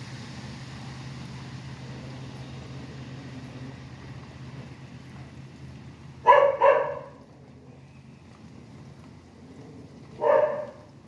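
A dog barks twice in quick succession about six seconds in and once more near the end. Underneath is a steady hiss of rain and highway traffic, with a low engine hum that fades out about two-thirds of the way through.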